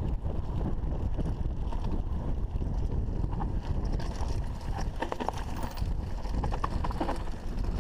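Wind buffeting the microphone over the low rumble of a mountain bike rolling fast down a rough dirt singletrack, with clicking and rattling from the bike and trail from about three seconds in.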